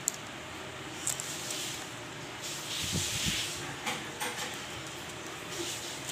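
Fingers handling a perforated sandpaper sheet for a sheet sander: soft rustling and scraping of the abrasive paper, with a few small clicks, over a steady hiss.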